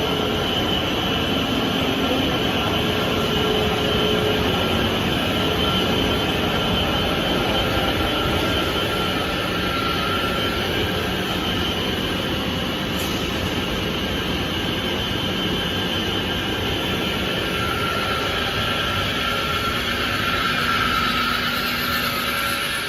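Straight-line steel wire drawing machine with nine drums running steadily: a loud, even mechanical drone with faint high whines held over it.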